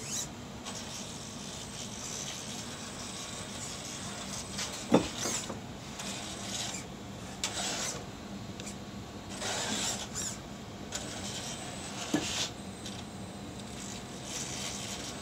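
Traxxas TRX-4 RC crawler's motor and gears whirring as its tyres scrape and grind over rocks and wooden planks, in uneven stretches. Two sharp knocks stand out, about five and twelve seconds in.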